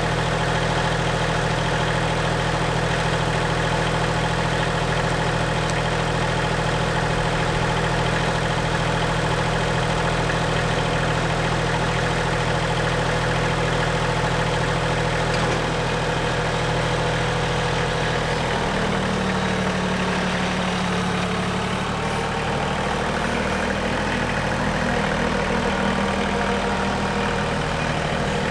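Massey Ferguson compact tractor's diesel engine running steadily; its pitch shifts about two-thirds of the way through.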